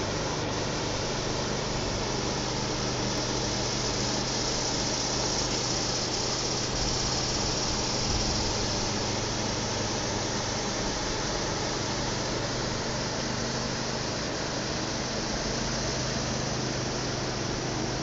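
Steady rushing hiss of river rapids, with a faint low hum underneath.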